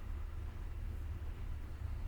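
Steady low rumble of a moving passenger train carriage running along the track.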